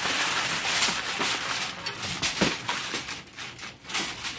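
Aluminium foil crinkling and crackling as it is pressed and crimped around the rim of a metal baking pan, densest in the first couple of seconds and then thinning to scattered crackles.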